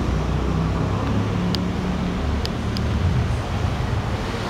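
BMW M5's V10 engine idling steadily through an Eisenmann aftermarket exhaust, a low, even rumble. A few faint clicks come through about halfway.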